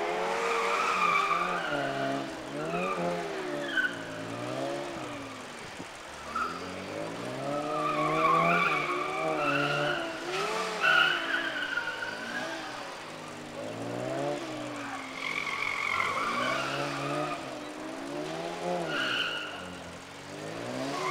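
Classic Mini's A-series four-cylinder engine revving up and down again and again under hard acceleration and lifting, with tyres squealing through tight turns.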